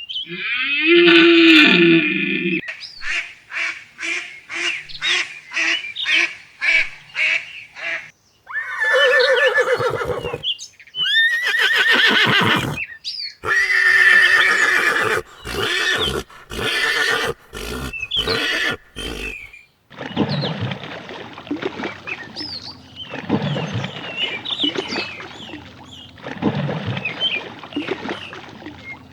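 A run of different animal calls, one after another, each cut off abruptly where the next begins; among them a series of about two short repeated calls a second, and near the end short high chirps over a steady outdoor noise.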